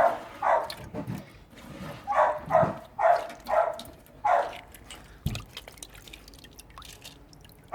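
A dog barking repeatedly, about two barks a second for the first four seconds or so, then stopping. A single knock follows about five seconds in.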